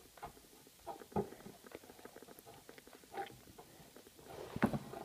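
Wet, sticky slime being peeled off a plastic mesh screen, giving faint irregular crackles and small sticky pops, with a slightly louder snap near the end.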